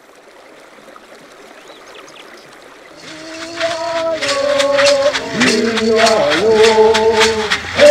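A faint rushing sound rises slowly, then about three seconds in a chanted song begins: voices singing held, gliding notes over a rattle shaken in a steady beat of about three strokes a second.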